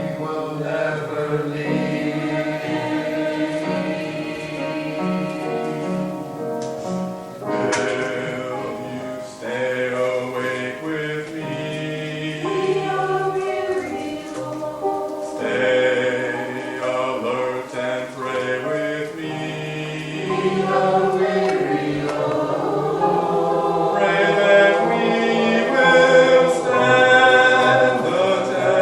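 A choir singing a sacred cantata number with accompaniment.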